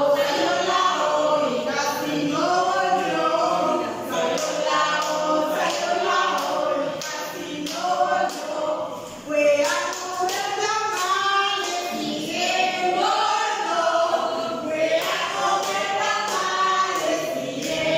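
A small group of women singing a Spanish children's vowel song together without instruments, with some hand clapping.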